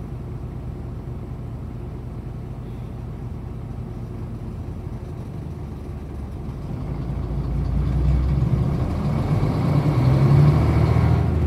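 Hino Blue Ribbon KC-HU3KMCA city bus diesel engine running steadily, then revving up and getting louder about two-thirds of the way in as the bus accelerates.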